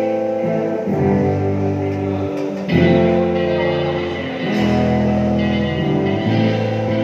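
Music with guitar: sustained notes changing chord every second or two.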